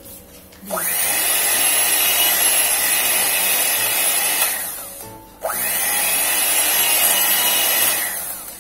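Electric hand mixer beating cake batter in a bowl, run twice for about four seconds each. Each time the motor spins up quickly to a steady whine and then winds down as it is switched off.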